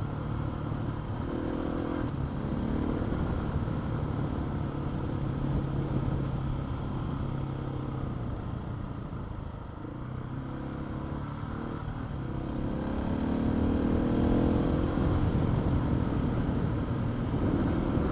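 Adventure motorcycle engine running along a winding dirt track, the revs easing off about halfway through and then climbing again as it accelerates, over a steady low rumble of wind and tyres.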